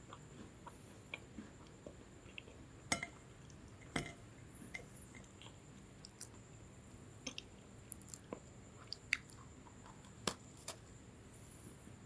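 Close-miked chewing of a lemon sandwich biscuit: soft crunches and mouth clicks at irregular intervals, with a few sharper crunches about three and four seconds in and again around nine and ten seconds.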